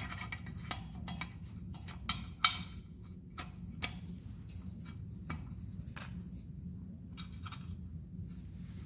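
Irregular light clicks and taps of small parts being handled, about a dozen in all, the sharpest about two and a half seconds in. A steady low hum runs underneath.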